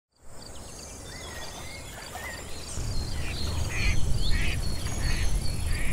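Ducks quacking in a series, roughly one call every half second from about three seconds in, with small birds chirping. Under it is a low rumble that grows louder about three seconds in.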